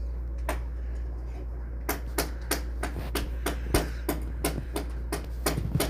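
Rapid sharp taps, about three to four a second from about two seconds in, over a steady low hum. They fit fingertips tapping a phone's touchscreen.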